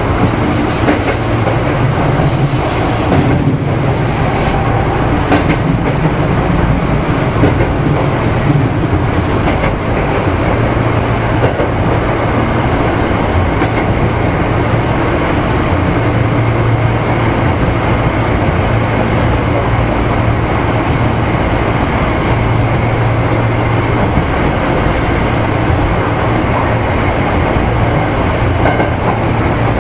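Hankyu 3000 series electric train (set 3062F) running along the line: a steady rumble of wheels and running gear with a low hum that swells and fades. A few rail-joint clacks come in the first ten seconds or so.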